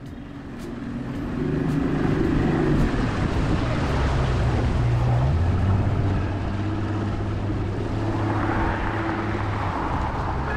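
Bass boat's outboard motor running at speed, with a rush of wind and water; it swells over the first couple of seconds and then holds steady.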